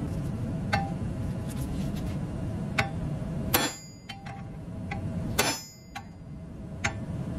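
Hammer blows on a punch set against a rivet head: about five sharp metallic taps, a second or two apart, each with a short ring. The rivet is stubborn and is not driving out easily.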